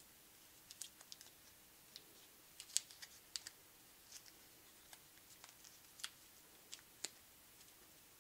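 Faint, irregular light clicks and ticks of small pieces being handled by hand at a bench press and vise, about fifteen over several seconds, the sharpest about three seconds in.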